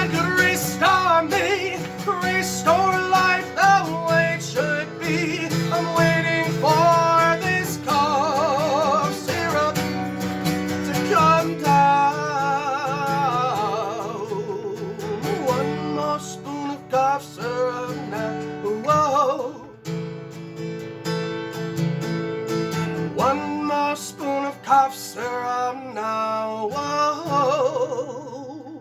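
Strummed acoustic guitar with a voice singing over it, the end of a song, thinning out near the end.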